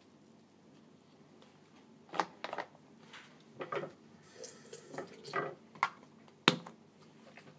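Toothbrush, toothpaste tube and other small plastic items being handled, picked up and set down: a run of light clicks and knocks starting about two seconds in, with the sharpest click near the end.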